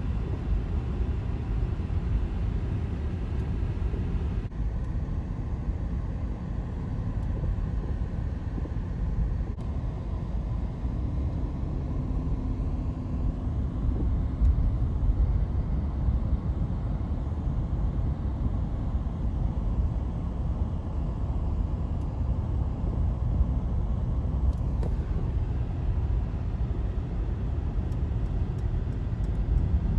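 Steady low rumble of jet aircraft engines, with a faint hum partway through.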